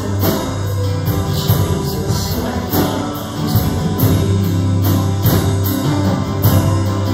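Live worship band playing: strummed acoustic guitar, drum kit with steady cymbal strokes, and keyboard holding low sustained notes.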